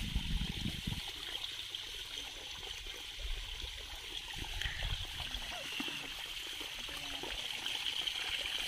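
Water trickling and splashing steadily out of the yellow emitters of a black drip-irrigation lateral pipe into puddles on the soil.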